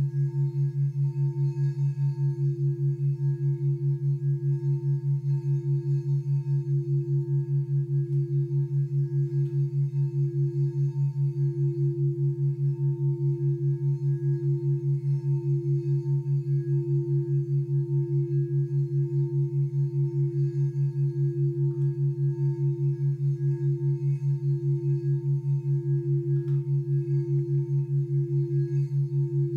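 Crystal singing bowl being rimmed with a mallet, holding a steady ringing tone that wobbles slowly in loudness. Beneath it runs a louder low drone that pulses rapidly and evenly.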